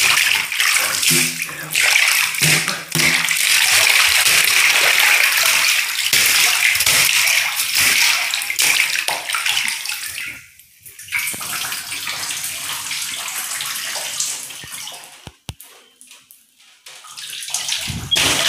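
Water running and splashing in a bathtub as toy figures are dunked in it. It is loud and steady for about ten seconds, then softer, and nearly stops for a couple of seconds near the end before a last splash.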